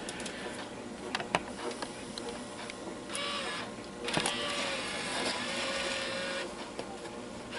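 Videotape player's cassette mechanism: a couple of sharp clicks, then its motor whirring in two stretches as a tape is loaded.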